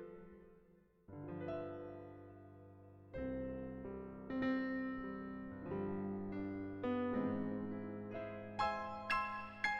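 Solo piano music: slow chords and single notes that ring and fade, with a brief hush about a second in before the playing resumes.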